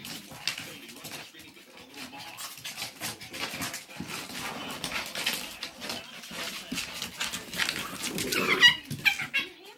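Two small dogs play-fighting on a wooden floor: scuffling and quick clicks of claws and paws on the boards, with a short high-pitched yelp near the end.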